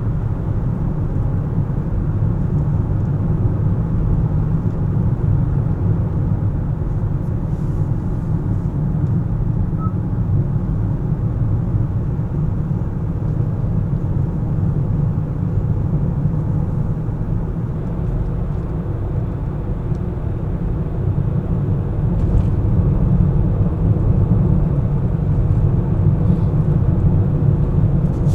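Car driving in city traffic: a steady low rumble of tyres on the road and the engine, growing a little louder in the last few seconds.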